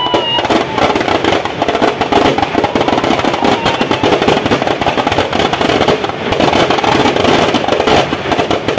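Firecrackers packed inside a burning Ravana effigy going off in a rapid, continuous crackle of pops, with a whistling tone fading out over the first few seconds.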